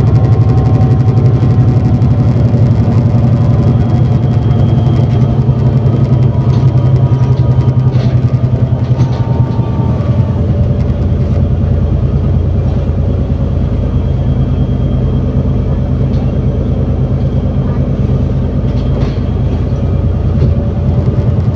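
ADL Enviro400 City double-decker bus with a Voith automatic gearbox, heard from on board while under way: a steady low engine drone with a whine on top that slowly falls in pitch over the first half.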